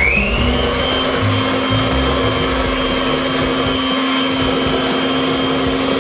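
Electric mixer running while creaming butter and sugar. Its motor winds up in pitch over the first second, then runs steadily at speed.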